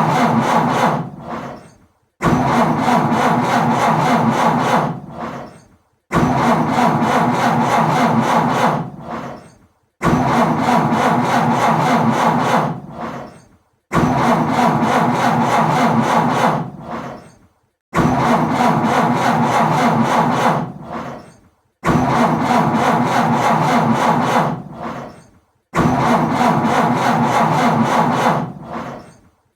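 A car's starter motor cranking the engine over and over without it catching. Each attempt starts suddenly, cranks steadily for about two and a half seconds, then dies away, and the same attempt repeats about every four seconds, seven times here.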